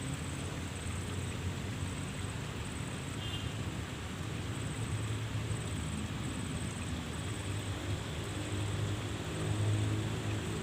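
Road traffic running steadily, a low rumble that swells as a vehicle passes close near the end.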